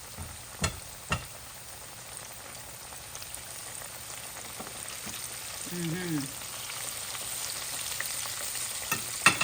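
Chicken wings frying in hot oil, a steady sizzle that grows slowly louder. A few sharp clicks sound near the start and once near the end.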